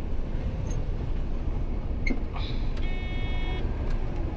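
Combine harvester running with a steady low rumble. A short high-pitched tone sounds about three seconds in.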